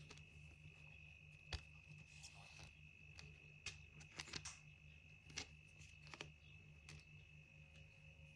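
Faint, scattered light clicks and taps over a steady faint high-pitched tone and low hum.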